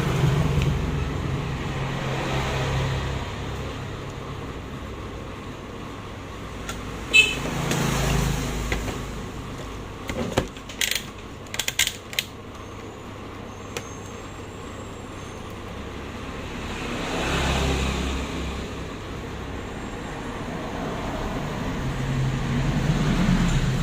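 Road traffic passing, a low rumble that swells and fades several times as vehicles go by. A few sharp clicks about a third and halfway through.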